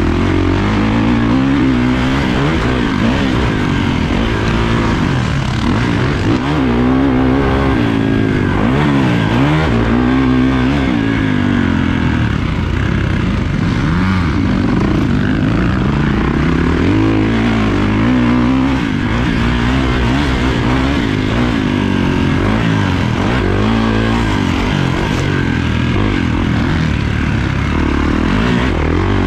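Kawasaki motocross bike's engine, heard close up from the bike itself, revving up and down over and over as the rider accelerates, shifts and rolls off through the turns of a dirt track.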